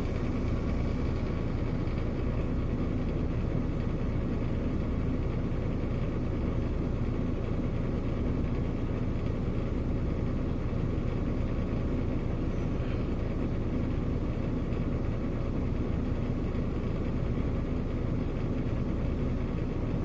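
Mercedes-Benz Actros truck's diesel engine idling steadily, a low even rumble heard from inside the cab.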